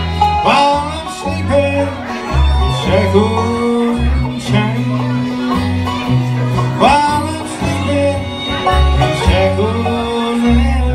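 Live bluegrass band playing: banjo, acoustic guitar and fiddle over a steadily walking bass line.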